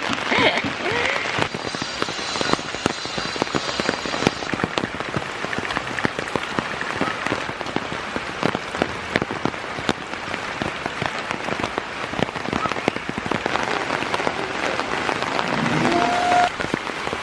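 Heavy tropical rain pelting down, a dense, steady patter of drops hitting the ground and nearby surfaces.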